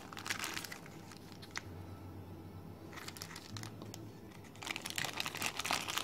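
Clear plastic zip bag crinkling as it is handled. The crinkling comes in bursts in the first second and again from about two-thirds of the way through, with a quieter stretch between.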